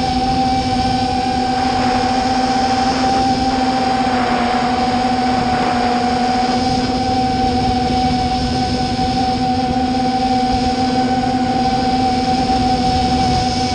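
FPV racing drone's brushless motors and propellers whining at a nearly steady pitch, close up through the drone's onboard camera, held at cruising throttle.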